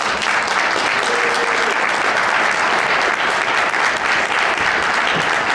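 Audience applauding steadily, a dense sustained clapping that greets a newly introduced speaker.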